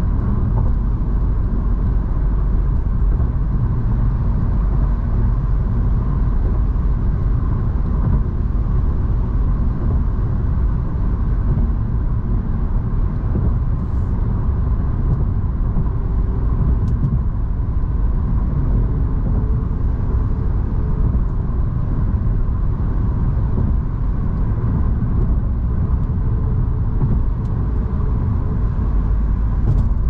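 Steady road noise inside a car at freeway speed: a low rumble of tyres and engine with a few faint clicks.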